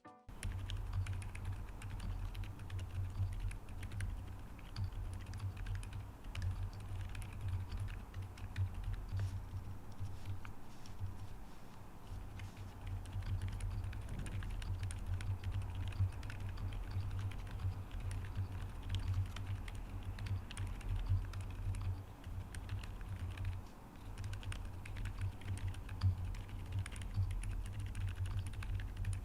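Continuous typing on a Qwertykeys QK75N mechanical keyboard with Akko Fairy silent linear switches, an aluminium plate, full foam and a gasket-mounted PCB. The keystrokes come thick and steady throughout.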